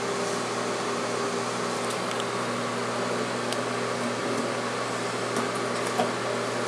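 Steady hum and hiss of a bathroom exhaust fan, with a few faint clicks over it.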